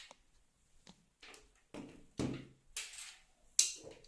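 A series of about six short knocks and clicks, irregularly spaced, from hands handling hard plastic and metal parts.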